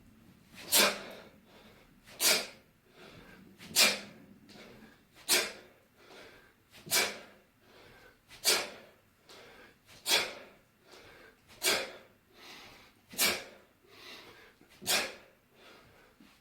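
A person breathing out sharply and forcefully ten times, one breath at the top of each kettlebell swing, at a steady pace of about one every second and a half, with softer in-breaths between.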